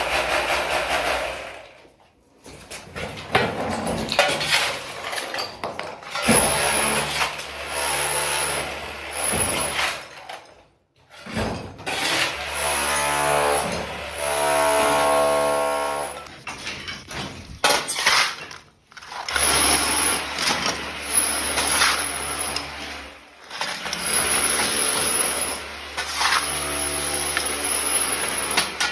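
Power tool running in bursts of a few seconds with short pauses between, chipping off old wall and floor tiles.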